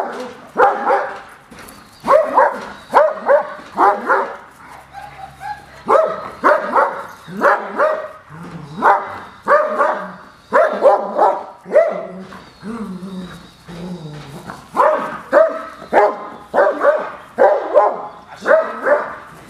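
Large German Shepherd-type guard dog on a leash barking aggressively at a stranger, loud short barks in quick clusters of two to four with brief pauses between them.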